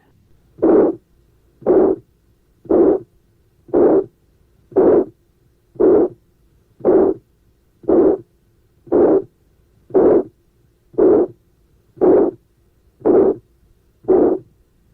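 Heartbeat with the harsh systolic murmur of severe aortic stenosis, about one beat a second: each beat swells then fades, and no clear second heart sound follows it, A2 being soft or absent.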